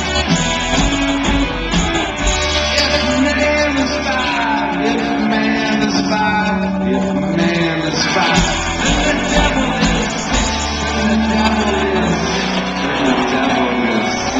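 A rock band playing live and loud, with sung and shouted vocals over electric guitar.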